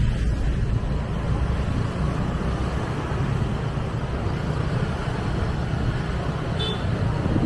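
Motor scooters riding through street traffic, heard from a moving scooter: a steady engine and road rumble, strongest in the low end, with a brief high tone near the end.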